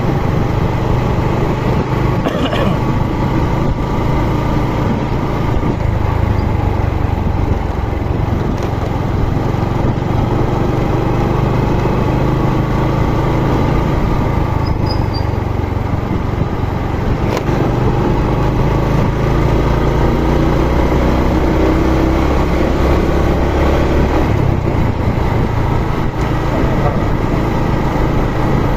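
A motor vehicle engine running steadily while travelling, its low note shifting a little, with road and wind noise throughout.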